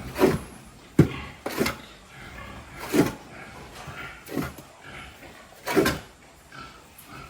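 Pigs grunting, a loud, short, falling grunt every second or so, with a sharp knock about a second in.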